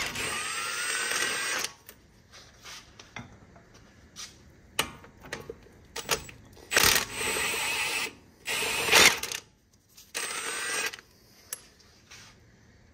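Cordless impact wrench running in a long burst at the start and then in several shorter bursts, backing out the 21 mm caliper bracket bolts on a truck's front brake.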